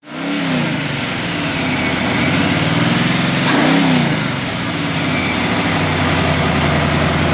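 Big-block Chevrolet V8, a 454 bored out to 468, idling through headers and a Hooker Super Comp exhaust. Its throttle is blipped twice, briefly raising the revs: once right at the start and again about three and a half seconds in. The engine is freshly rebuilt, with under 100 miles on it.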